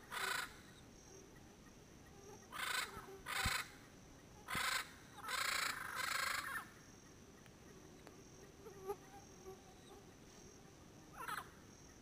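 Yellow-headed Parrots (Amazona oratrix) calling noisily: a run of harsh squawks, several in quick succession with one drawn out for about a second, then a few fainter calls near the end.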